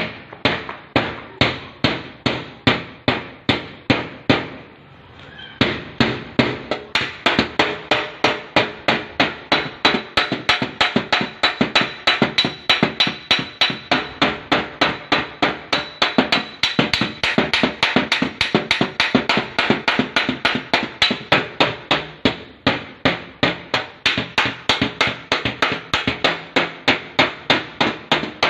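Hammer blows on a car's sheet-metal fender in cold dent repair: rapid, even hammering at about three strikes a second, with one pause of about a second and a half near the start.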